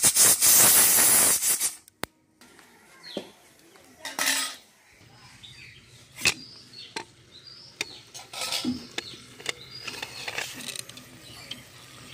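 Aluminium pressure cooker being opened: scattered metal clinks, clanks and scrapes as its weight valve and lid are worked with a spatula and a knife. A loud hiss comes first and cuts off abruptly about two seconds in.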